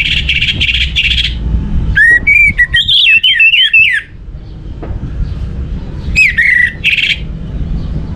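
Orange-headed thrush singing in three bursts: a harsh, scratchy rasping phrase, then a run of quick whistled notes sliding up and down, then a whistle ending in another rasp, with short pauses between. A steady low rumble lies underneath.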